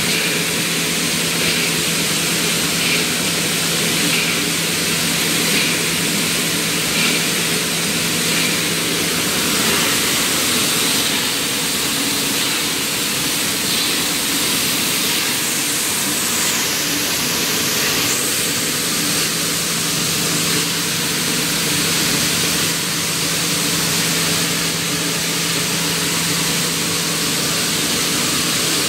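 Steady machinery noise of a gypsum belt filter conveyor and its plant running. It is a constant hum with a strong hiss over it.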